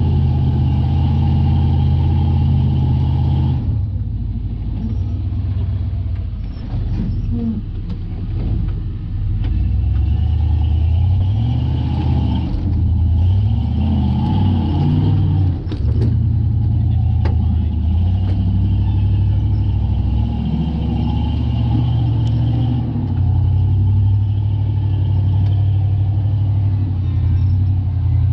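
Off-road Jeep engine running under load while crawling, its pitch rising and falling with the throttle through the middle, with a few sharp knocks along the way.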